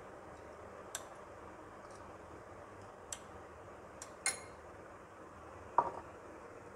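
A steel spoon clinking against a glass bowl and a clay pot as curd is scooped and served: a few light taps spread through, and a louder clink with a short ring near the end.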